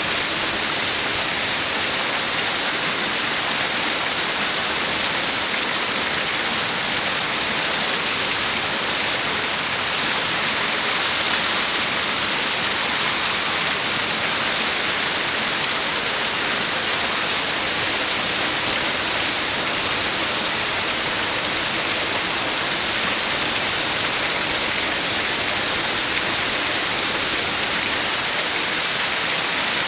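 Small waterfall pouring down onto rocks into a pool: a steady, even rush of falling water.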